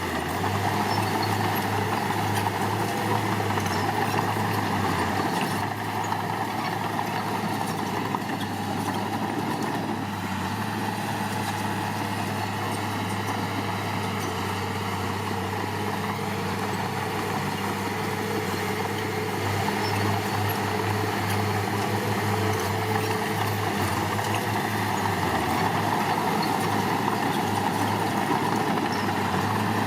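Heavy diesel engine of earthmoving equipment running steadily, getting louder for the first few seconds and again from about two-thirds of the way in as it works.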